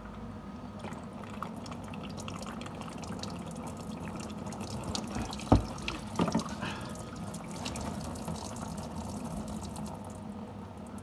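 Diesel fuel pouring and splattering out of a fuel filter housing that has just been unscrewed, streaming over a gloved hand and dripping onto the plastic undertray in a steady patter of small drips. A sharp knock about halfway through is the loudest sound, with a smaller one shortly after.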